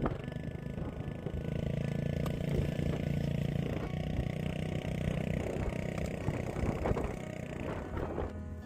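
Engine of the machine pulling a plow, running steadily while it works the ground, with a few knocks near the end.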